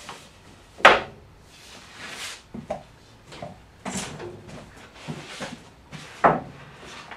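Wooden strips and board cutoffs being set down and shifted on an MDF panel: a few sharp wooden knocks, the loudest about a second in and again near the end, with softer knocks and brief scraping slides between.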